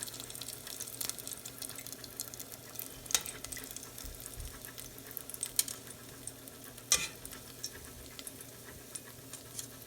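Sweet potato balls frying in hot cooking oil: a steady sizzle with fine crackling. Twice a utensil knocks sharply against the pan or dish.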